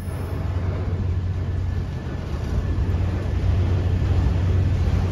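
Autorack freight cars rolling past at close range: a steady rumble of steel wheels on the rails that grows a little louder about three seconds in.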